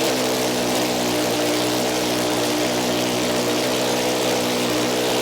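Kawasaki ZX-10R inline-four engine running steadily at idle on its first test start after a rebuild, with no exhaust header pipes fitted, so it runs with open exhaust ports.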